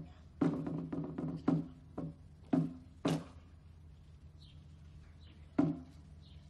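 Boots of a catafalque party marching in step on a hard surface, about two sharp steps a second, stopping about three seconds in, with one more stamp near the end.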